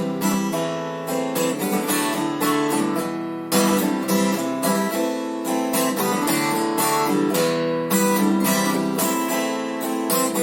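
Acoustic guitar strummed in a steady rhythm, playing a chord progression, with fresh heavier strokes as the chords change a few seconds in and again near the end.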